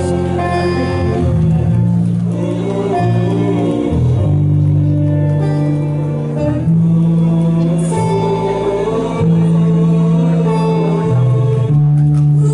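Choir singing a slow song in long held notes over an instrumental accompaniment.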